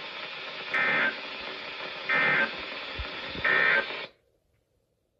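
Weather-radio EAS end-of-message data bursts: three short, identical raspy digital bursts about 1.4 s apart over radio hiss, the SAME code that marks the end of an alert message. The audio cuts off to silence about four seconds in.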